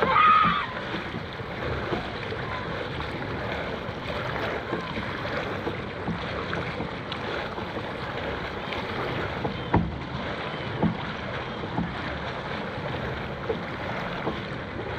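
Dragon boat on the water under paddle: a steady wash of water noise with wind on the microphone and scattered short knocks. A short loud burst comes right at the start.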